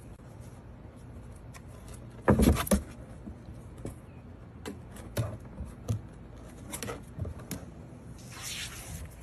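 Puppies' paws scrabbling and knocking on the hollow plastic steps of a toddler slide as they climb, in irregular taps and scrapes, with a louder cluster of bumps about two seconds in and a rustling scrape near the end.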